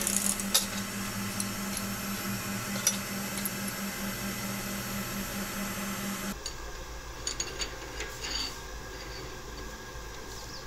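Metal lathe running with a steady hum, its four-jaw chuck spinning. About six seconds in the hum cuts off abruptly, and a few light metallic clinks follow.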